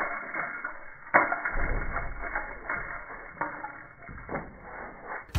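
A small striped bass flopping on a boat's deck: irregular slaps and thuds, the sharpest about a second in, sounding muffled.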